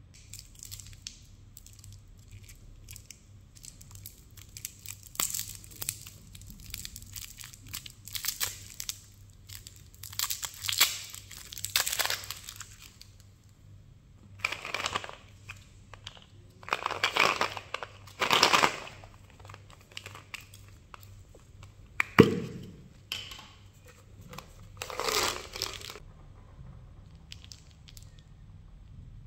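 Candy wrappers and packets crinkling and tearing in repeated bursts of a second or two as sweets are unwrapped and handled, with one sharp click about two-thirds through.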